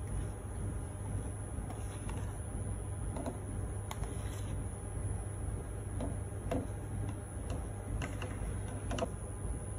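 A metal spoon scraping whipped coffee froth out of a mixer jar into a mug, with irregular light clicks and taps of the spoon against the jar and mug over a steady low hum.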